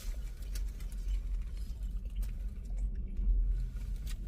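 Low steady rumble inside a car, with a few faint small clicks and rustles.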